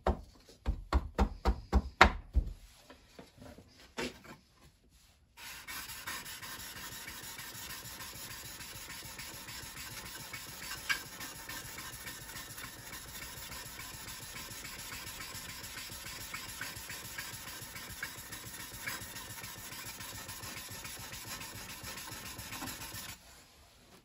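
A steel card scraper, held in a wooden holder, being honed on a sharpening stone: a steady abrasive rubbing that starts about five seconds in and stops abruptly near the end. The stone is flattening the scraper's edge to remove the slight dish left by filing. Before it comes a quick run of taps and a knock as the scraper is fitted into its holder.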